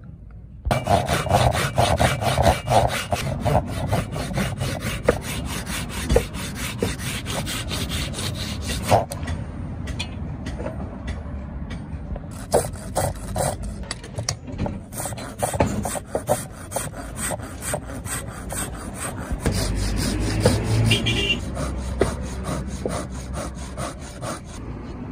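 Saw cutting lengthwise through a small wooden block in rapid back-and-forth strokes, with a rasping sound and a couple of short pauses. It is splitting the block into two slabs for a knife handle.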